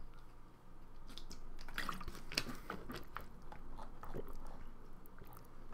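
A scatter of small, irregular clicks and ticks close to the microphone, with no speech.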